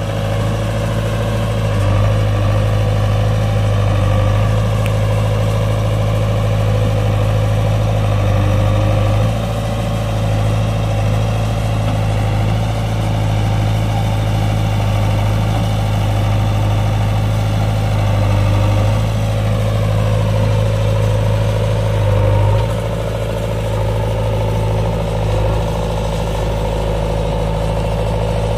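Diesel engine of a JCB 3DX backhoe loader running steadily while the machine works. Its speed falls about twenty seconds in, and it runs a little quieter after that.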